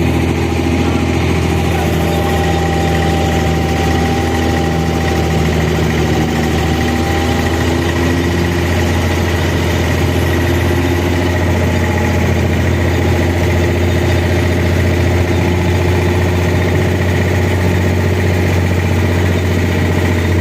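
Diesel engine of an abra water taxi running steadily, a loud, even low drone with a steady hum over it.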